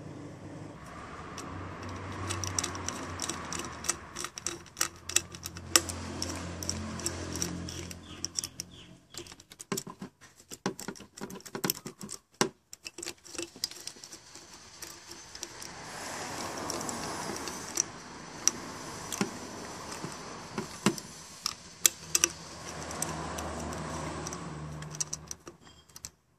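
Socket ratchet clicking in quick, uneven runs while it tightens an ignition coil's two mounting bolts, with small metal taps of the socket on the bolt heads.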